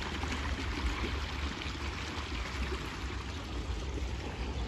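Irrigation water gushing and splashing steadily out of a concrete field-channel outlet, with a steady low rumble underneath.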